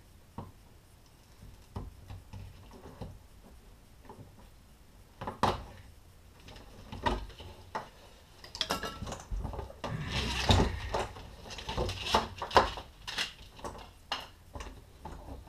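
Hand tools knocking and clicking on the fuel pump assembly atop a dropped fuel tank. A few single sharp clicks come first, then a busy run of knocks and taps about halfway through.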